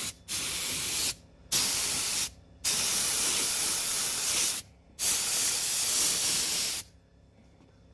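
Compressed-air paint spray gun with a gravity-feed cup hissing as it sprays paint onto furniture. It sprays in several long passes broken by short gaps between trigger pulls, and stops about seven seconds in.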